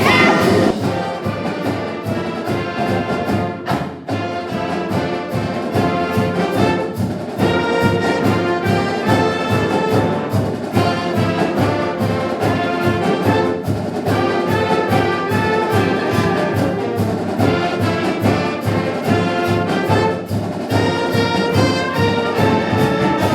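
Brass-heavy music with a steady beat, loud throughout.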